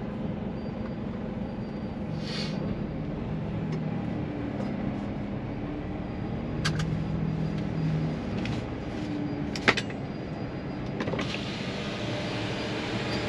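Heavy truck heard from inside the cab, its diesel engine running at low speed under steady road and tyre noise, with the engine note rising and falling slightly. Two sharp clicks about seven and ten seconds in, and more tyre noise near the end as it rolls down the ramp.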